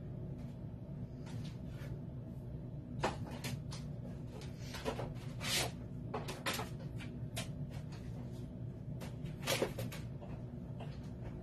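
Irregular knocks and clicks of things being handled, about eight sharper ones spread through the middle, over a steady low hum.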